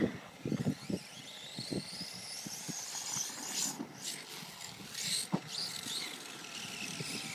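Brushless electric motor of a DF Models Hot Hammer 1/10 RC truck whining, rising in pitch as it accelerates and then holding a steady high whine. Scattered knocks in the first two seconds, and two short bursts of noise around the middle.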